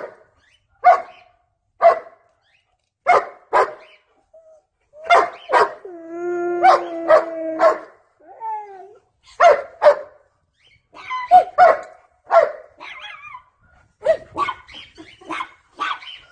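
A dog barking in short, sharp barks, about one a second at first. In the middle comes a longer cry held at a steady pitch, followed by quicker barks near the end.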